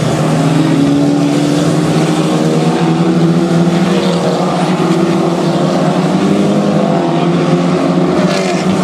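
Several race cars' engines running together as a pack goes by, a steady drone made of overlapping engine notes whose pitch drifts slowly up and down.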